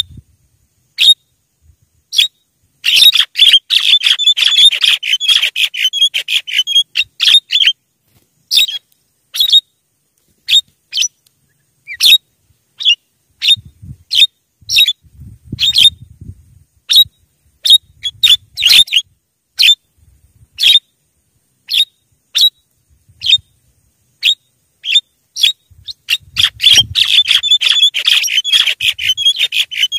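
Javan myna (jalak kebo) calling: short, sharp notes repeated at irregular intervals, breaking into dense fast chattering runs about three seconds in and again near the end.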